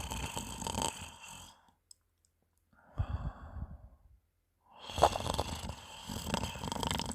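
A person snoring in their sleep with a wet, phlegmy rattle, which the snorer puts down to mucus in the throat after drinking alcohol. One breath trails off, then two more snoring breaths follow with short pauses between them, the last opening with a sharp crackle.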